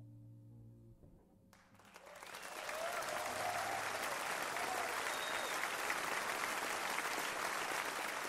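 Last low note of an electric bass guitar dying away, then an audience breaks into applause with a few shouts. The applause swells over about a second and then holds steady.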